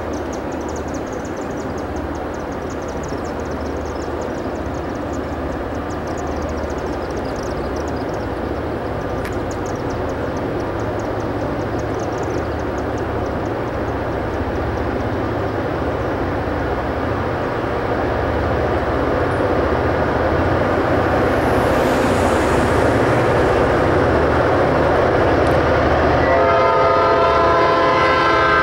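Maryland Midland EMD GP38-3 diesel locomotives approaching with a freight train, their engine rumble and rail noise growing steadily louder. Near the end the lead locomotive's air horn starts to sound.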